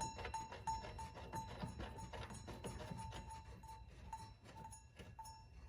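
Quiet background music with a steady beat of short, repeated pitched notes, fading away near the end.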